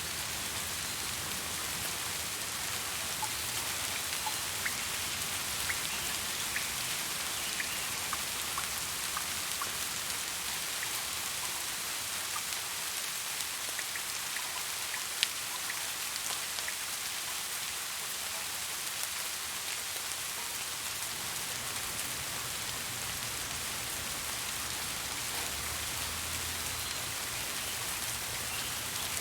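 Steady rain falling in an even hiss, with individual drops ticking here and there and one sharper drop hit about fifteen seconds in.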